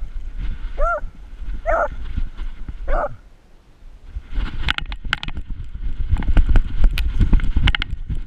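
Beagle giving three short, excited barks about a second apart. After a brief pause, a quick run of thuds and knocks comes from the strapped-on camera being jolted as the dog runs across the grass.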